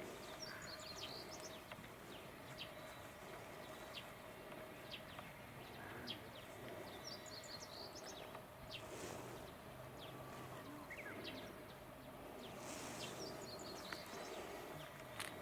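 Small birds chirping in three short bursts of quick high notes, over a steady outdoor background hum.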